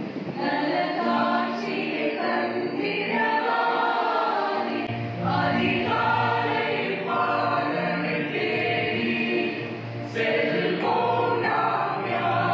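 Mixed youth choir of women and men singing a Tamil Christmas carol, with a lower part joining about five seconds in.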